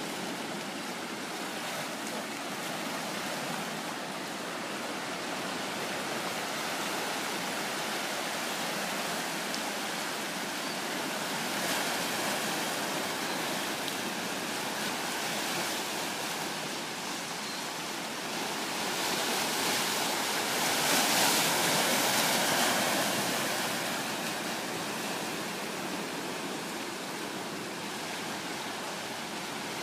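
Ocean surf washing over and around shoreline rocks: a steady rushing of water, swelling louder for a few seconds about two-thirds of the way through.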